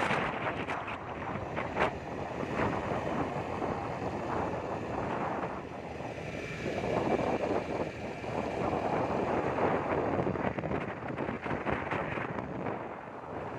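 Wind rushing over the microphone, swelling and easing, with scattered light knocks.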